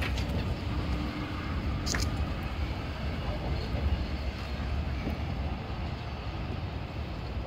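Steam locomotive No. 1455 pulling a string of freight cars slowly along the yard track: a steady low rumble, with a short sharp click about two seconds in.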